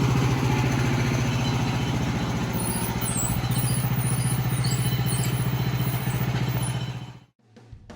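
Small gasoline engine of a portable Woodland Mills sawmill running steadily at a constant speed, with faint high chirps over it. It cuts off abruptly near the end.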